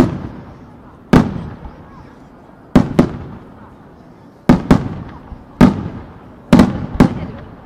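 Aerial firework shells bursting one after another, about ten sharp bangs at uneven intervals, some in quick pairs, each trailing off in a rolling echo.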